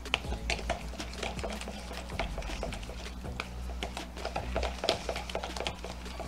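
Gloved hands mixing a thick mayonnaise-based remoulade with chopped pickles and herbs in a plastic bowl: irregular quick clicks and taps, several a second.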